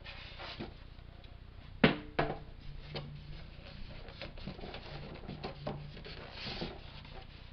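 Styrofoam packing blocks being pulled out of a cardboard box: scattered rubbing, creaks and knocks, with two sharp knocks close together about two seconds in.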